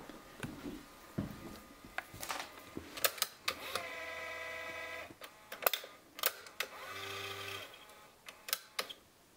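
Digital answering machine being worked: buttons clicking, then a steady electronic beep lasting about a second and a half, more clicks, and a second, shorter and lower beep.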